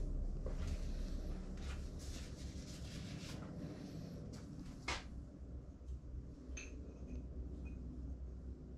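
Steady low room hum with scattered soft knocks and rustles as a person moves in and handles drawing materials, and one sharp click about five seconds in.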